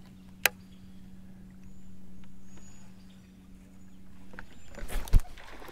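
Steady low hum, as of a boat's electric trolling motor, that cuts off about four and a half seconds in. A sharp click comes about half a second in, and a loud thump near the end.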